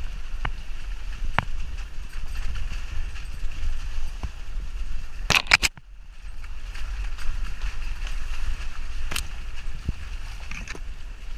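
Jeep Wrangler driving slowly over a rocky creek-bed trail: a steady low rumble with scattered knocks and clacks as it jolts over rocks, and a quick burst of sharp clacks a little over five seconds in.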